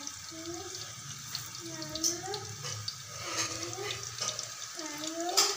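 Jalebi batter frying in hot oil, a steady sizzle with small crackles and pops. A faint wavering tone repeats about once a second over it.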